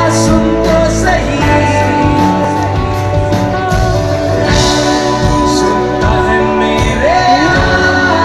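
Live rock band playing loudly through a concert PA, with a male singer over acoustic and electric guitars, bass and drums, heard from the crowd.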